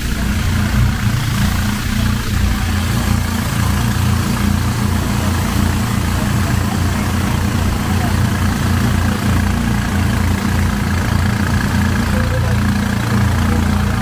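A motor running steadily at an even speed, a continuous low rumble with no change in pace.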